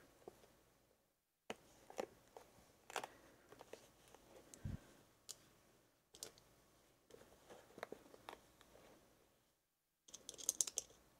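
Faint, scattered clicks and scrapes of a tool working on an American 1100 padlock as it is gutted, handled through silicone oven mitts, with a denser patch of clicking about ten seconds in.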